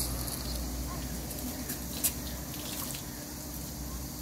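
Water from a garden hose running and splashing on wet floor tiles as a broom is pushed over them, with a few sharp clicks and knocks, the sharpest about two seconds in.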